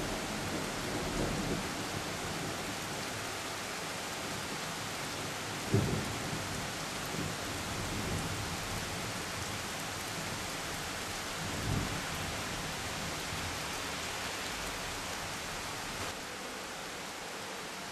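Steady rain hissing with thunder: low rolls about a second in and again about twelve seconds in, and a sharp, louder crack of thunder about six seconds in. The rain eases slightly near the end.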